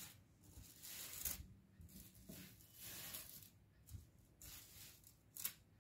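Faint rustling of long strands of beads being handled, a few soft rustles against near silence, the loudest about a second in and near the end.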